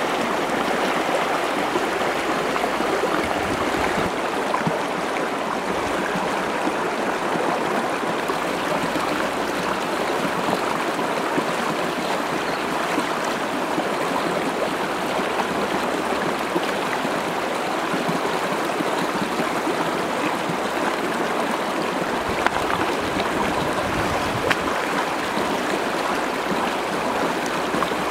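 Shallow stream rushing steadily over rocks.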